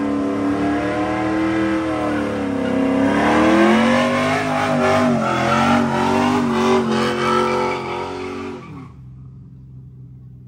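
Drag car's engine revving hard through a tire-smoking burnout. The revs waver and dip about three seconds in, then fall away and stop near the end.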